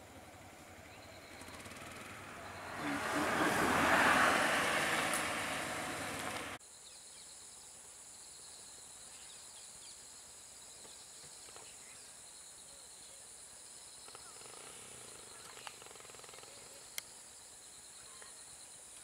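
A loud, rough noise with no clear pitch swells over about four seconds and cuts off abruptly. Then comes a steady high insect drone with a couple of faint clicks.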